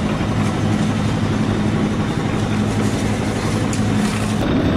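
Engine of a roadside concrete mixer running at a steady hum, mixed with street noise. The hum drops out near the end.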